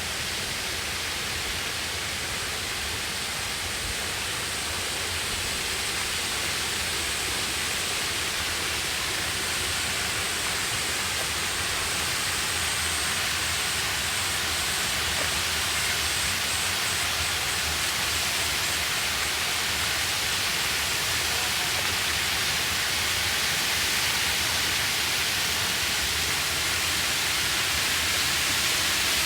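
Steady rushing of water from a broad, low two-step waterfall, 4 m high and 30 m wide, pouring over a single large rock slab. It grows slowly a little louder.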